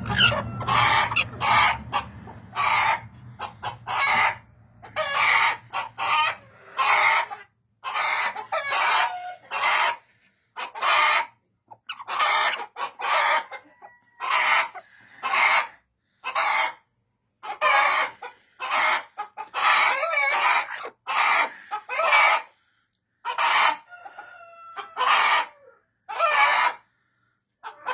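Hen cackling over and over, a string of loud clucking squawks about one a second with short silent gaps between them: the egg song a hen gives around laying.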